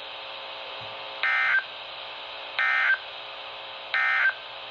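NOAA Weather Radio SAME end-of-message data bursts: three short, identical buzzy warbling bursts about a second and a half apart, heard through a weather radio receiver over steady reception hiss, marking the end of the weekly test.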